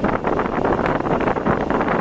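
Steady wind and road noise from a car being driven, with wind rushing across the microphone.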